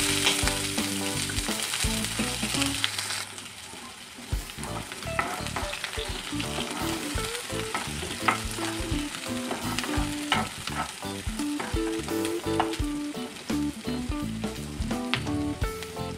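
Chopped onions and green chillies sizzling in hot oil in a kadai, loudest for the first three seconds after they go in, then settling to a softer frying hiss. A spatula stirs them, scraping and tapping against the pan.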